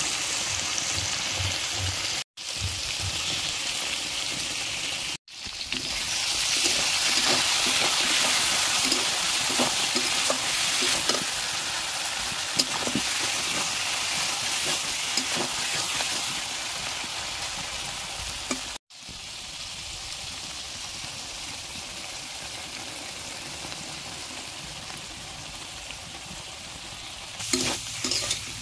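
Chicken and potato curry sizzling as it fries down in a metal kadai, with a spatula stirring it and a few knocks against the pan near the end. The steady hiss is broken three times by a brief silence.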